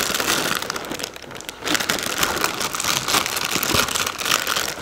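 Plastic inner bag of a cereal box crinkling and rustling as it is tugged and pulled open, with a brief lull about a second in.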